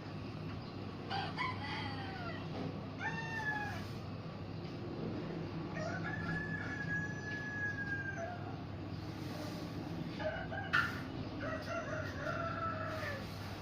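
Roosters crowing several times: short crows in the first few seconds, a long drawn-out crow in the middle, and another crow near the end with a sharp click just before it. A steady low hum runs underneath.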